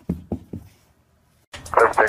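A small dog giving a few short, low woofs while playing. About a second and a half in, a louder voice cuts in.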